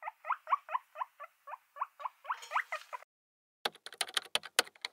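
Guinea pig wheeking: short rising squeaks about four a second, growing into a few longer, louder calls before stopping about three seconds in. Then a quick run of keyboard typing clicks.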